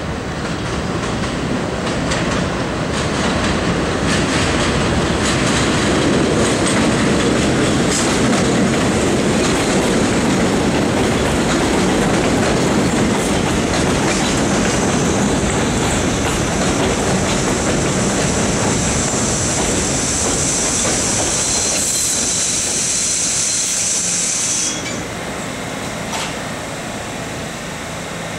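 Bombardier R62A subway train arriving at a station: a loud rumble with wheels clacking over the rail joints, swelling over the first few seconds. About halfway through a high squeal rises as the train slows, and it cuts off suddenly as the train comes to a stop near the end.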